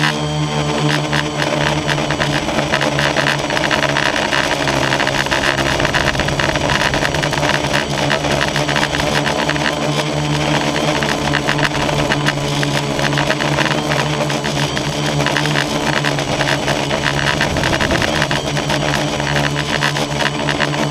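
Multirotor drone's motors and propellers buzzing steadily in flight, heard up close from the camera mounted on the drone. The hum holds one pitch, wavering a little now and then as the motors change speed.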